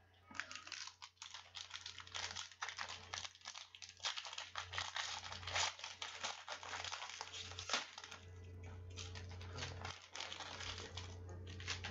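A trading-card pack wrapper crinkling and crackling in the hands as it is torn open and the cards come out, with dense irregular crackles throughout, over a steady low hum.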